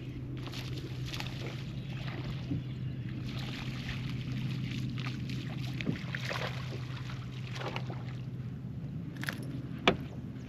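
Water splashing and sloshing at the side of a fishing boat over a steady low hum, with one sharp knock near the end.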